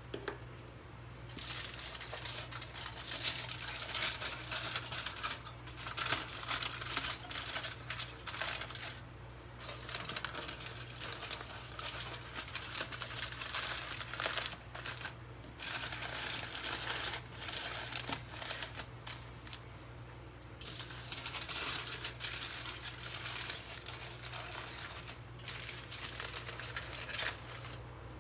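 Aluminium foil crinkling and crumpling as hands fold and pinch it closed around heads of garlic, in irregular bursts with a few short pauses.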